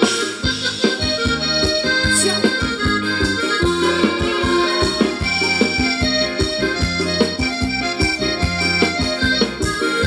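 Live band playing Thai ramwong dance music: a sustained melody over a steady, evenly repeating drum beat.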